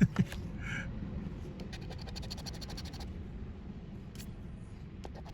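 A scratch-off lottery ticket being scratched: quick, rapid strokes scraping the coating off the card, after a brief sharp noise at the very start.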